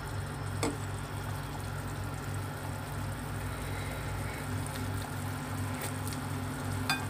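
A pot of broth boiling on the stove, with a low hum pulsing about twice a second underneath. A light click sounds about half a second in.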